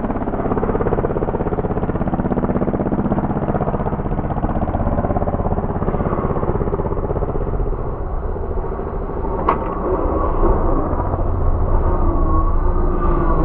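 Engine of a Mitsubishi Triton-bodied off-road race truck running hard as it is driven fast over rough grass, its note shifting and growing rougher and deeper in the later seconds. A single sharp click sounds about nine and a half seconds in.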